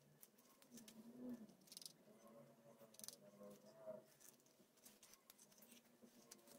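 Faint rustling and scattered light clicks of hands handling a sandal and its elastic strap while hand-sewing it with needle and thread.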